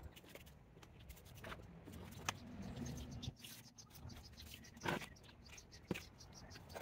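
Gloved hands working potting soil in a plant pot, with soft rustling and scraping and a few sharp taps and clicks, the loudest about five seconds in.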